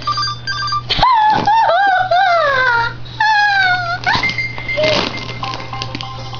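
High-pitched whimpering cries, several in a row, each wavering and sliding down in pitch.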